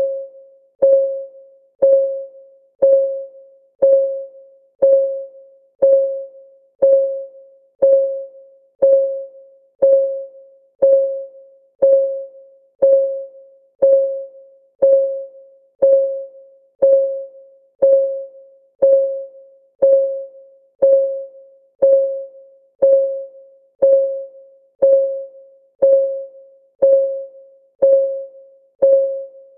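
Countdown-timer clock ticking, one tick a second. Each tick is a short, pitched tock that rings briefly and fades before the next.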